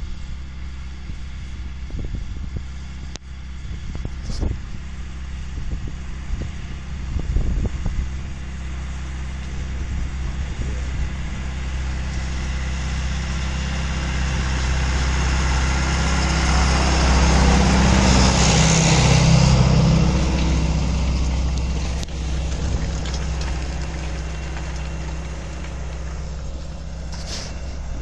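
John Deere 2140 tractor's diesel engine working steadily under load, pulling a plough; it grows louder as the tractor passes close, loudest a little past halfway, then fades. Wind knocks on the microphone in the first few seconds.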